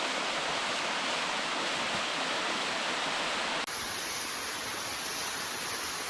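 Waterfall rushing with a steady, even roar of falling water; about two-thirds of the way through it abruptly turns a little quieter and duller.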